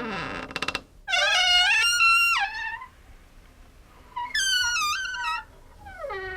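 Door hinge creaking: long, high, wavering squeaks that glide in pitch, three in a row about a second and a half apart, the last one falling. A quick stuttering run of clicks comes right at the start.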